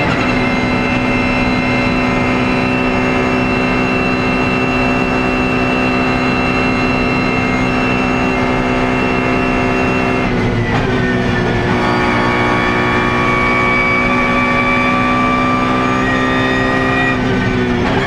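BMW Z4 GT3's V8 racing engine under power, heard from inside the cockpit: a steady high drone held at one pitch for about ten seconds, then a sudden drop in pitch followed by a slow climb, with another change in pitch near the end.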